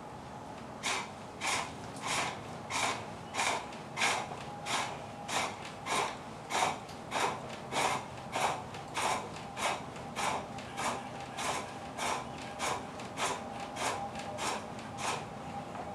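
Wood being turned on a homemade foot-treadle pole lathe with an overhead spring return: an even run of noisy cutting strokes, about three every two seconds, starting about a second in.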